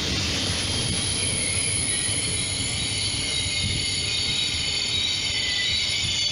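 Trenitalia passenger coaches rolling past on the rails, a steady rumble with the wheels squealing in several high, wavering tones.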